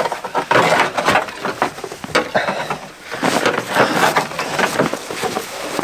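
Snow chain clinking and rattling in irregular bursts as it is fitted by hand onto a van tyre, with snow crunching.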